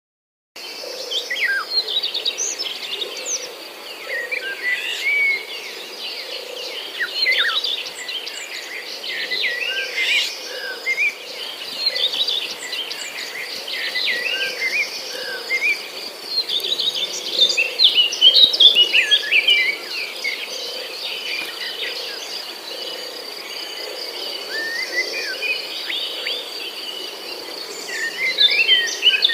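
A flock of small birds chirping and twittering all together in a dense, continuous chatter, over a steady high thin tone.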